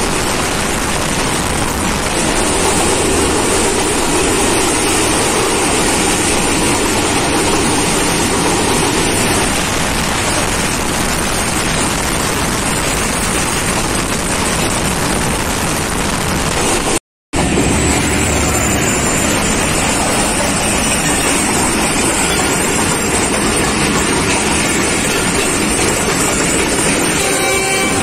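Steady rumble and wind rush of a moving passenger train, heard from an open coach doorway. The sound cuts out completely for a moment about 17 seconds in.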